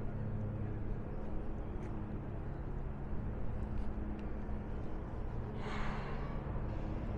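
Steady low machine hum under outdoor ambience. About five and a half seconds in, a brief breathy hiss lasts about a second.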